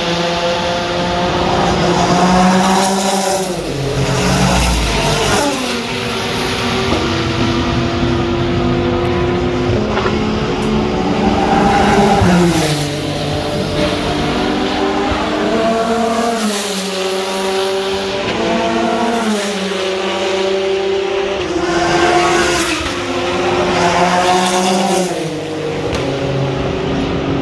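Sports race cars passing one after another, their engines rising and falling in pitch again and again as they accelerate and shift gears, with an engine note held steady for a few seconds in between.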